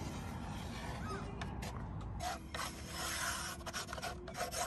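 Wooden stick scraping across a plywood board as it spreads thin epoxy, in a run of rasping strokes that grow louder about halfway through.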